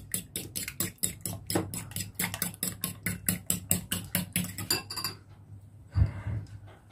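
A metal spoon beats raw eggs in a ceramic bowl, clinking against the bowl about five times a second. The beating stops about five seconds in, and a single low knock follows about a second later.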